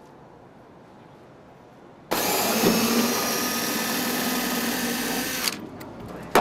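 Cordless drill driving a screw into a corrugated metal roof panel: the motor starts suddenly about two seconds in, runs steadily for about three seconds and stops abruptly.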